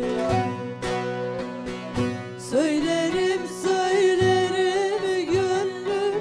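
Turkish folk music: plucked string instruments play an instrumental passage, and about halfway in a held, ornamented melody line with wavering bends comes in over them.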